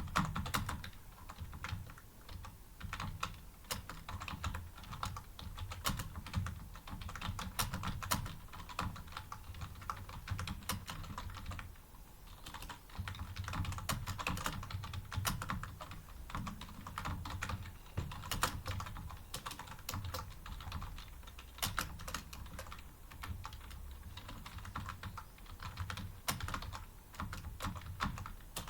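Rapid, continuous typing on a computer keyboard during a timed typing speed test, the keys clicking in an uneven stream with a brief pause about twelve seconds in.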